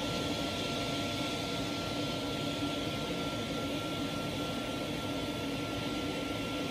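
Air compressor running with a steady mechanical hum and hiss, a thin high tone held throughout.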